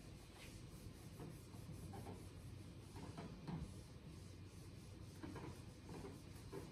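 A whiteboard eraser rubbing across a whiteboard in a series of faint, irregular wiping strokes.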